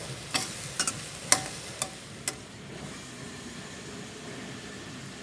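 A spatula clacking and scraping against a pan while a stir-fry is stirred, with frying sizzle underneath. About six sharp knocks come in the first two and a half seconds, then only the steady sizzle hiss.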